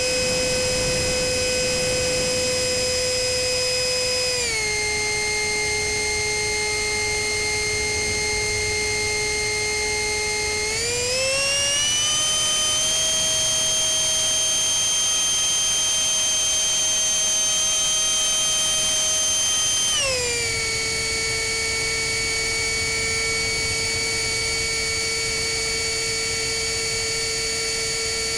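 64 mm GWS electric ducted fan driven by a Cyclone Power CP400 brushless motor, heard from on board the model jet in flight: a steady high whine. Its pitch drops a little about four seconds in, rises as the fan speeds up around eleven seconds, and falls back about twenty seconds in.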